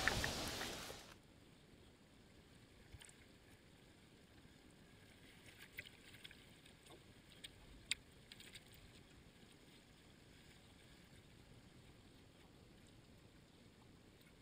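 A steady hiss stops abruptly about a second in. After it comes near silence, with a few faint clicks and taps around the middle.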